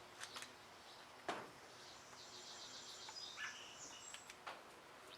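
Faint songbirds chirping and trilling in the background, with a few small clicks and one sharp knock about a second in.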